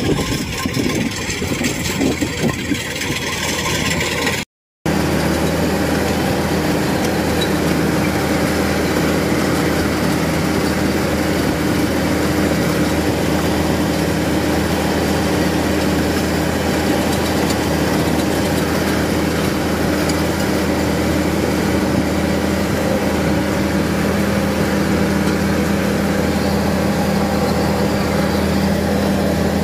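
Thai-built rice combine harvester running steadily while harvesting, a constant engine hum. It drops out for a moment about four and a half seconds in, then is heard close up from on the machine.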